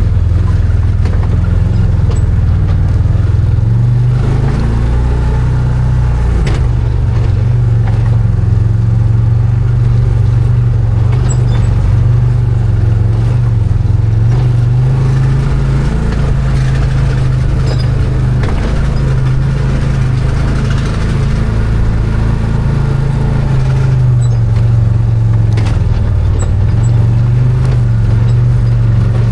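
Arctic Cat Wildcat 1000 side-by-side's V-twin engine running under way, its pitch holding fairly steady with small rises and falls. Two sharp knocks come through along the way.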